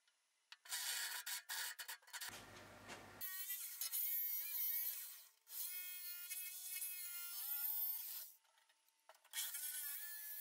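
A step drill bit in a cordless drill bores through a sheet-steel enclosure, then a Bosch jigsaw cuts a square opening in the steel. Short bursts of harsh rasping cutting are broken by brief gaps. Through much of it runs a wavering metallic squeal.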